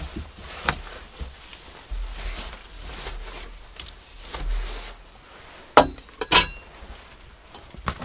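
Rustling and handling of small objects on a wooden table, with two sharp knocks in quick succession a little after halfway.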